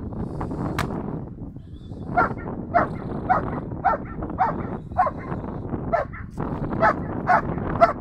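A large black-and-tan dog held on a long line barking repeatedly at a training helper. The barks begin about two seconds in and come in a regular run of about eleven, roughly two a second.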